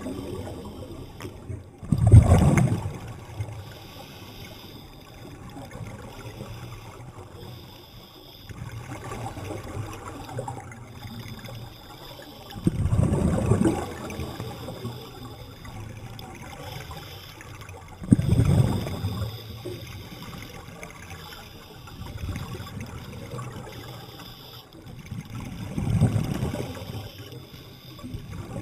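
Scuba diver's exhaled breath bubbling out of the regulator underwater: four gushes of bubbles several seconds apart, over a low steady underwater rumble.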